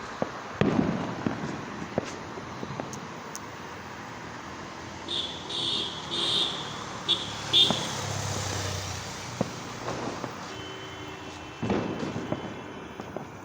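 Diwali firecrackers going off: a few sharp bangs with echoing tails, the loudest about half a second in and another near the end, over steady street noise. A pulsing high-pitched beeping sounds in the middle.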